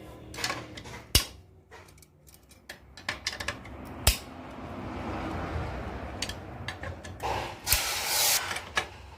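Metal hand tools working the 8 mm bolts of a motorcycle's clutch case: sharp metallic clicks and clinks, two of them loud, with stretches of scraping and rattling as the bolts are turned out with a T-handle wrench.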